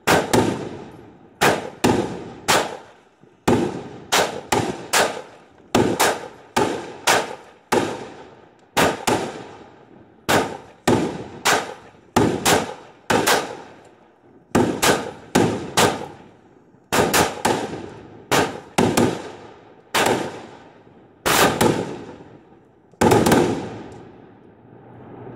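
A multi-shot firework cake firing a long, irregular volley of loud bangs, often in quick twos and threes, each with a short echoing tail. The shots stop about two seconds before the end.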